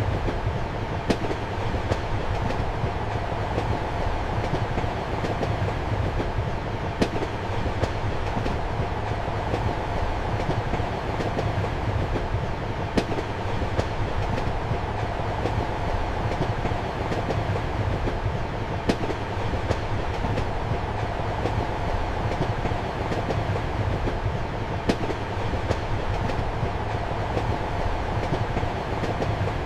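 Steady rumble of a moving train heard inside a passenger compartment, with a low hum and light clicks of the wheels over rail joints. A sharper click comes about every six seconds.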